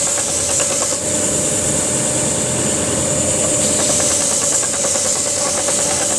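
Belt sander running steadily with an oak box pressed against the belt, sanding the overhanging top flush with the sides. The high sanding hiss changes in strength a couple of times as the piece is shifted on the belt.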